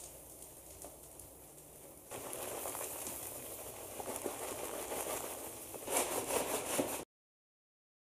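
Wood-fibre cat litter granules pouring from the bag into a plastic litter box: a steady hissing patter of pellets, faint at first and louder from about two seconds in, with sharper crackling near the end before the sound cuts off suddenly.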